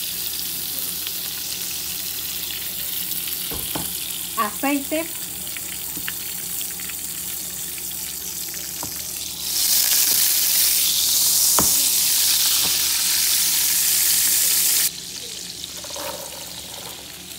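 Butter and oil sizzling in a hot frying pan, a steady high hiss. About halfway through the sizzle turns much louder for about five seconds, then cuts off sharply back to a softer sizzle.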